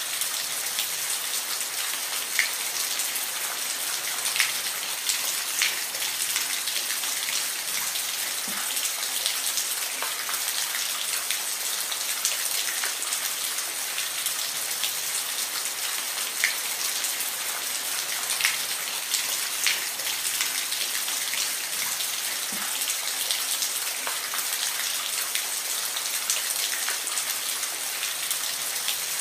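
Steady rain falling, a continuous hiss with individual drops ticking sharply on a surface every second or so.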